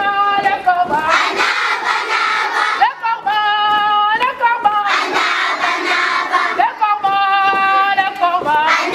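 A crowd of schoolchildren singing or chanting in unison, holding long high notes about three times, with noisy shouting from the crowd between the held notes.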